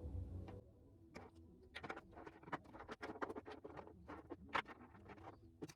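A run of small, irregular clicks and taps, the handling noise of small objects being moved and touched close by. A brief low hum cuts off about half a second in.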